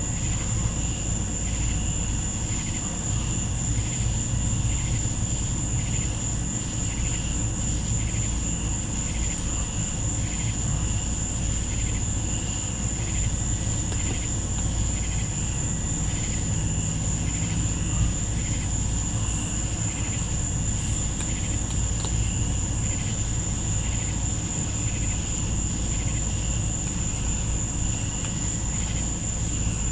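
Night insects calling: one steady, high, unbroken trill, with a slower chorus pulsing about once a second beneath it, over a steady low rumble.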